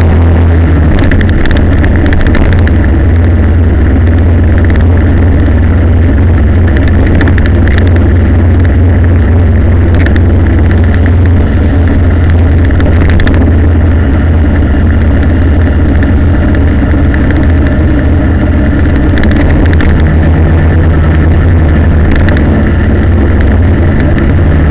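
A motor vehicle's engine running steadily while under way, with a strong, steady low hum and road noise.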